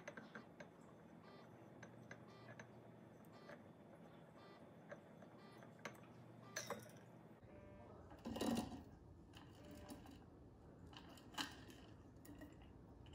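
Near-quiet handling of a glass wine bottle being turned over a candle flame: scattered faint clicks and ticks, with a louder knock about eight and a half seconds in.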